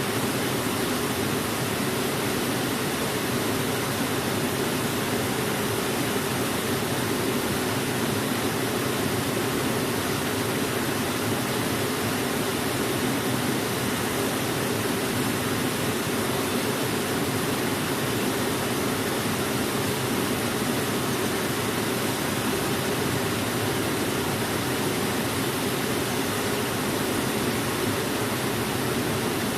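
Waterfall: a steady, unbroken rush of falling water, fullest in the low-middle range.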